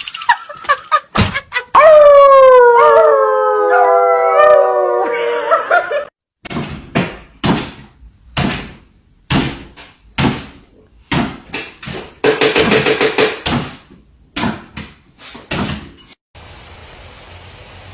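Dog howling for about four seconds, its pitch sliding downward, followed by a series of short sharp sounds about once a second.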